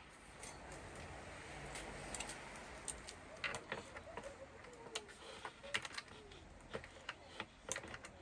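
Irregular light clicks and taps of small parts and hand tools being handled during work on a car's intake manifold, several in quick clusters toward the middle and end.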